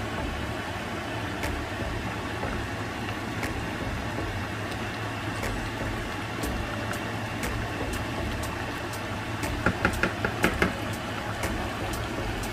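Beef and onions in soy sauce simmering in a stainless-steel skillet: steady bubbling with scattered small pops over a low hum. About ten seconds in, a quick run of about six ringing clinks.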